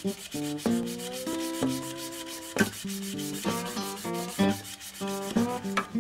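Picked acoustic guitar music, one note or chord after another, over a scratchy rasp of sandpaper rubbing a wooden pen blank spinning on a wood lathe.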